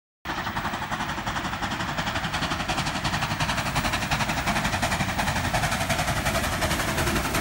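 A steam locomotive passing at speed, its exhaust beats coming in a rapid, even rhythm over a low rumble. The sound cuts in abruptly just after the start.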